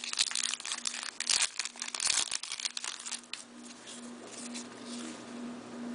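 Crinkling and rustling of O-Pee-Chee hockey trading cards being handled and shuffled in the hands. It is busiest in the first three seconds, then settles to quieter card sliding over a faint steady hum.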